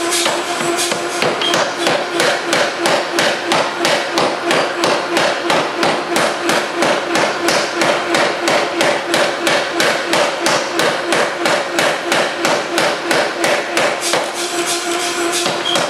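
3B Nazel self-contained air forging hammer pounding continuously, its heavy ram striking a red-hot stainless steel billet between flat dies in rapid, evenly spaced blows while the bar is drawn down toward square. A steady hum runs under the blows.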